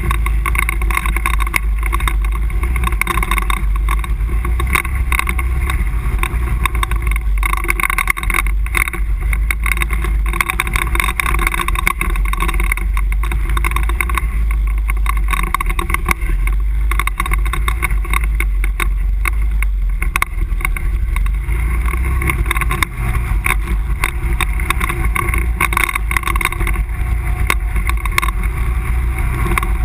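An ATV's engine running steadily under way, heard from a camera mounted on the machine, with a constant low rumble and a few brief dips in level.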